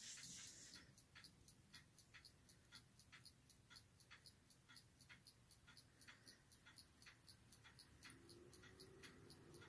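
Faint, even ticking, about three or four ticks a second, with a low hum coming in about eight seconds in.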